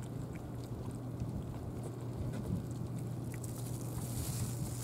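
A cat chewing dry kibble, faint scattered crunches, over a steady low hum.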